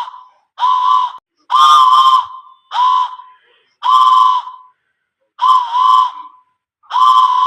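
A whistle blown in a string of short blasts, about one a second, each half a second to a second long, on a steady pitch that wobbles slightly.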